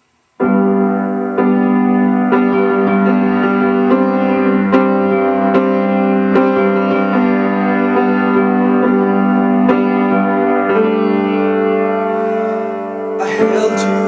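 Piano-sounding keyboard playing the opening of a song: sustained chords restruck in a steady pulse, a little more than once a second, starting about half a second in, with the chord changing a few times.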